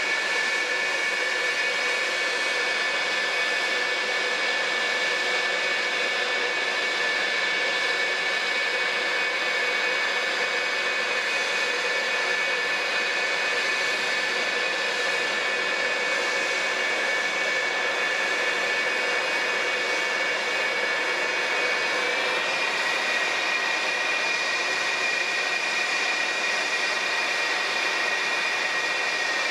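The twin J79 turbojets of a parked F-4EJ Phantom II idling with a steady high whine over a rushing hiss; the whine steps up slightly in pitch about twenty-two seconds in.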